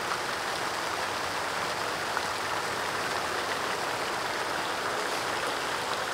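Steady, even rushing noise outdoors, with no change or distinct events.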